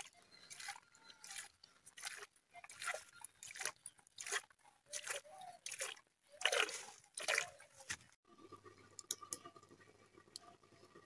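Wet, crunching strokes repeated about once a second, as food is worked by hand during cooking; they stop about eight seconds in, leaving a faint steady hum with a few light ticks.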